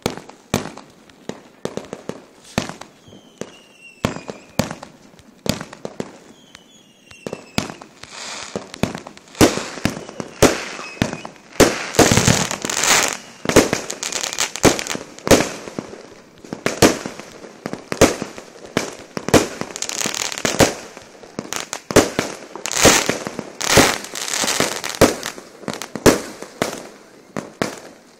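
Aerial fireworks bursting in a rapid series of bangs, with two falling whistles about four and seven seconds in. From about eight seconds the bangs come thicker and louder, mixed with crackling.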